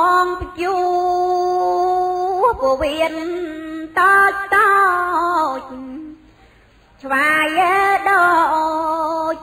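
A woman's solo voice chanting Khmer smot, Buddhist verse sung in long held notes that waver in pitch. She breaks off for a breath about six seconds in and resumes a second later.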